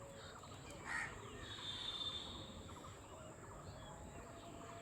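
Faint outdoor morning ambience with a few distant bird calls: a short call about a second in and a thin high whistle near the two-second mark.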